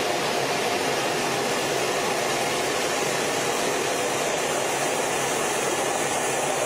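Steady, even rushing roar of a Blue Angels F/A-18 jet in flight, as heard inside the cockpit.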